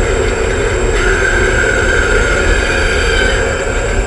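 Built-in spooky sound effect from a battery-operated Halloween lantern: a steady, noisy rumble, with a thin high tone coming in about a second in and fading out a little after three seconds.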